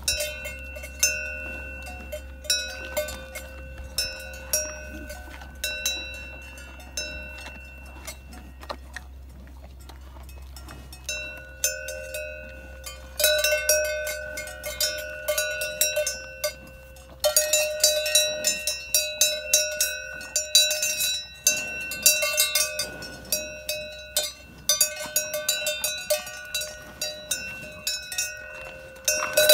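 A cowbell on a grazing cow's collar clanking irregularly as the cow moves its head. The strokes are sparse at first, then come thick and fast and louder from about halfway through.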